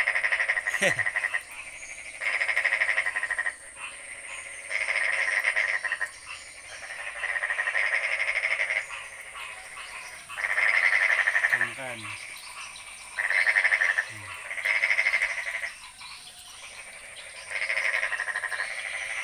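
A chorus of many frogs calling: loud, pulsing trill-like calls in bouts of about a second, repeating roughly every two seconds and overlapping from several frogs.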